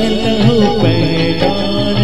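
A man singing a Hindi film song into a microphone over recorded backing music. His voice bends through a short run of notes in the first second, and steady held notes follow.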